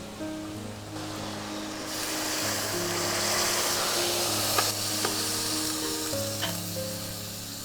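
Food sizzling in a frying pan; the sizzle grows louder about two seconds in, with a few clicks of a utensil against the pan. Background music plays throughout.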